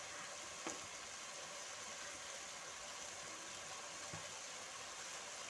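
Meat and spices frying in a large cooking pot, a steady faint sizzle with a couple of light ticks.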